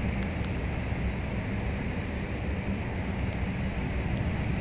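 Steady low background rumble of a large indoor hall's ambience, with a few faint clicks.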